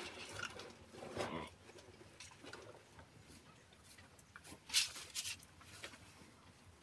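Water buffalo eating chopped green fodder from a trough: irregular munching and rustling in the feed, with a few louder sharp noises about two-thirds of the way through.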